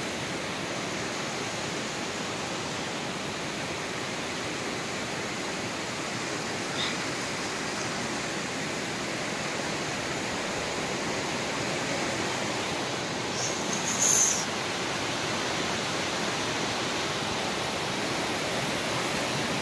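Waterfalls rushing steadily, with a brief high-pitched sound about three-quarters of the way through.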